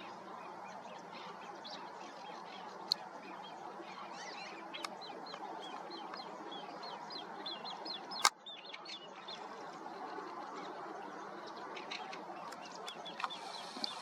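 Birds calling in the early morning: a rapid run of short high chirps builds up a few seconds in, over a steady background of outdoor ambience. A sharp click about three seconds in and a louder one just past the middle.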